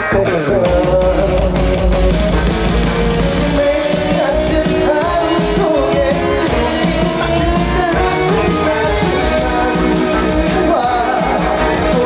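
Upbeat Korean trot song performed live: a male voice singing over loud, steady-beat backing music, heard through the stage's PA system.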